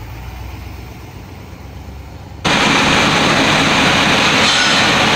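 Large pickup truck engine idling, a low steady hum. About two and a half seconds in, the sound jumps abruptly to a loud, steady rushing noise.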